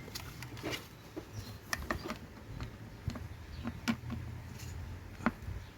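Scattered small clicks and taps of a round charger plug being fumbled into the charging socket on a plastic ride-on toy motorbike.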